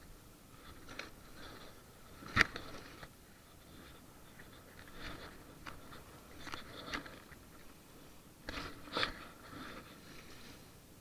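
Faint, irregular scrapes and clicks, with one sharp click about two and a half seconds in and a few more close together near the end.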